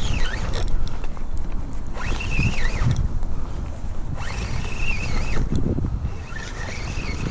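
Wind blowing across the microphone: an uneven low rumble throughout, with higher rushing sounds that come and go about every two seconds.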